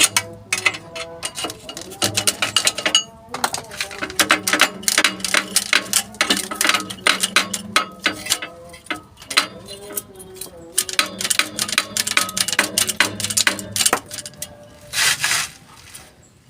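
Rapid metallic clicking and clanking of hand tools working on the clutch assembly, with a short burst of hiss near the end.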